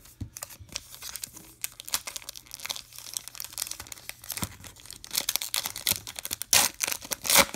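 Foil wrapper of a Topps trading-card pack being torn open by hand, crackling and crinkling, with the loudest tears near the end.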